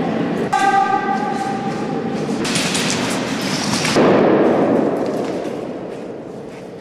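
Steady, echoing din of an indoor airsoft game, with a brief held tone about half a second in and a louder burst of noise about four seconds in that then fades.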